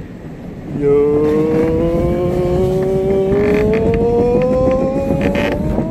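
Gravity-ride cart rolling on its track over a low rumble, its wheels setting up a steady whine that starts about a second in and climbs slowly in pitch.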